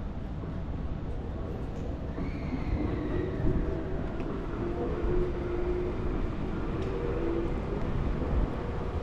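Tokyu Toyoko Line electric train running past: a steady rumble with whining tones through the middle and a short high tone that falls in pitch about two seconds in.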